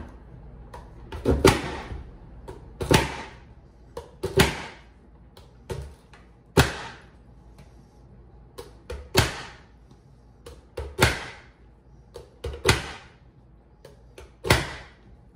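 Plastic push-down vegetable chopper dicing red onion: its hinged lid is pressed down hard through the blade grid about eight times, each stroke a sharp clack, with lighter clicks between strokes.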